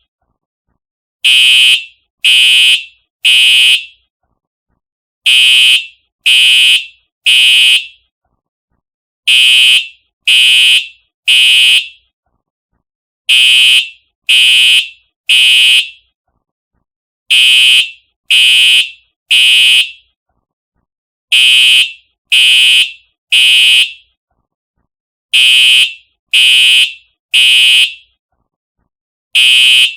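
Simplex TrueAlert fire alarm horn sounding the temporal-three evacuation signal: three loud, buzzy half-second blasts, then a pause of about a second and a half, repeating every four seconds.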